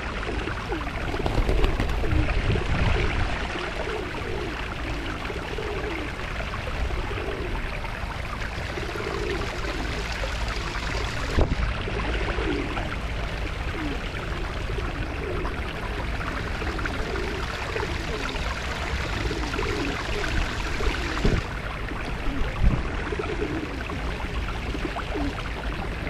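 Feral pigeons cooing over and over in low, soft repeated calls over a steady rushing background, with a few short knocks.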